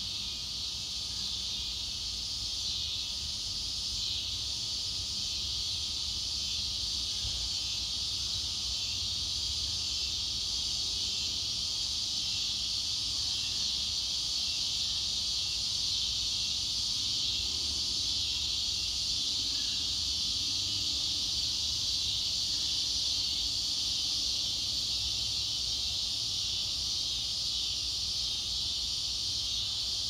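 A chorus of cicadas in the trees: a steady, high-pitched buzz that never breaks, swelling slightly louder over the first half or so.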